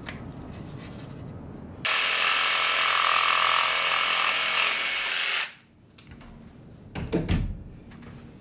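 Red cordless handheld power tool running at a steady buzz for about three and a half seconds on a thin plywood pattern strip, then stopping. A few knocks follow near the end.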